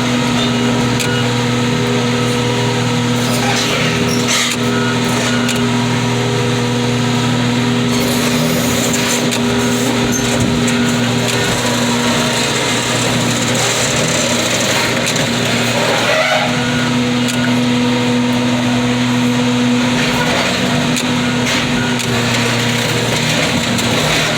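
Heavy equipment engine running steadily under load with a constant hum, which eases for a few seconds midway and then picks back up, and a few light knocks over it.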